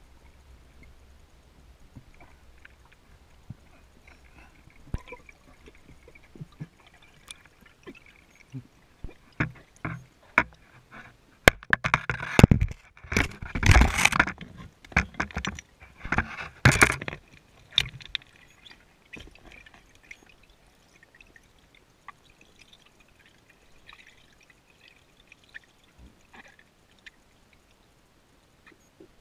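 Underwater sound through a camera housing: scattered sharp clicks and knocks, and in the middle a run of loud bubbling, gurgling bursts close to the camera.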